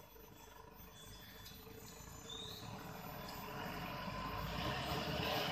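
Toyota Hilux pickup driving slowly over a muddy track toward the microphone, its engine and the noise of its passage growing steadily louder.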